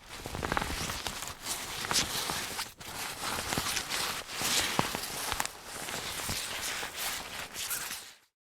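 Jacket fabric rustling and swishing in uneven bursts, like someone moving while wearing it. There is a brief break about a third of the way in, and it cuts off just before the end.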